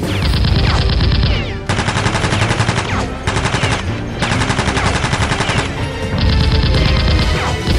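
Rapid automatic gunfire sound effects in several long bursts with short pauses, dubbed over Nerf blasters being fired, with background music underneath.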